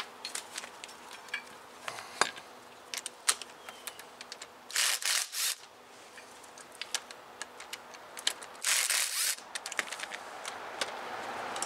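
Handheld power tool spinning out the rear caliper bracket bolts in two short buzzing runs, about five and nine seconds in, among light metallic clicks of the caliper, bolts and tools being handled.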